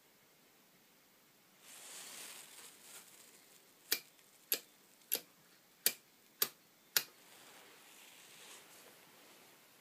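A brief rustle, then six sharp mechanical clicks about half a second apart.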